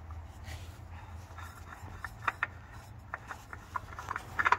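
Faint scattered clicks and rubbing as a spin-on oil filter is turned loose by hand, over a low steady hum.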